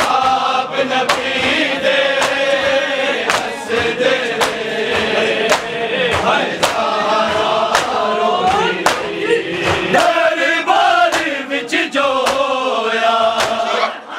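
Men's chorus chanting a Punjabi noha (mourning lament), with collective chest-beating (matam) striking in unison about twice a second to keep the beat.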